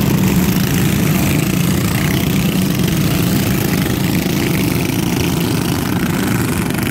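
Small single-seat race cars on a dirt oval, their engines running together as a pack at racing speed. The sound is steady and fades slightly as the cars pull away.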